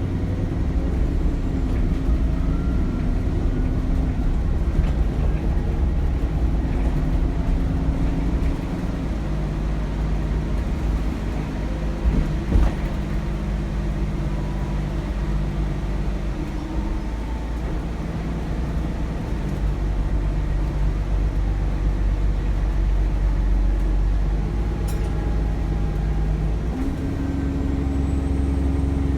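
Cummins ISBe diesel engine of an Alexander Dennis Enviro400 double-decker bus running under way, heard from inside the bus with a faint turbo whistle above the engine note. The engine note drops about eight seconds in and picks up again near the end. There are two bumps about twelve seconds in.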